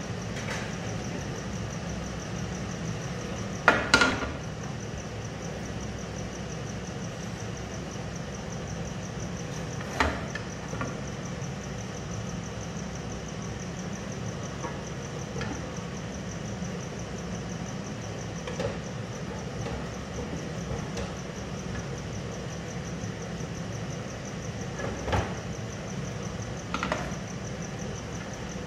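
A steady low mechanical hum, with a handful of sharp clinks and knocks of a metal serving spoon against a cooking pot and serving plate, the loudest about four seconds in and again about ten seconds in.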